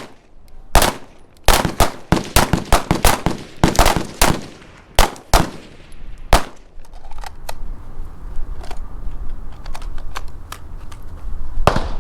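Firearm gunshots at an outdoor range: a quick string of loud shots in the first four seconds, a few more spaced single shots, then fainter scattered shots and one more loud one near the end.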